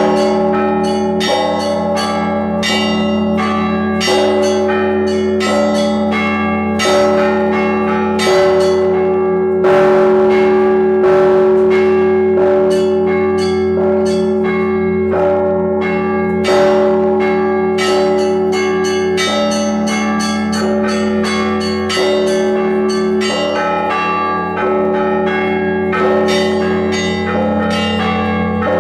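Orthodox cathedral bells rung in a continuous peal: small bells struck in quick, busy patterns over the lingering hum of larger bells, with a louder strike about ten seconds in.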